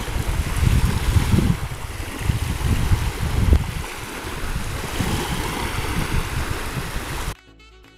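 Wind buffeting the microphone over small waves lapping at the shore of the calm Baltic Sea, in uneven gusts. It cuts off abruptly about seven seconds in, giving way to quiet music.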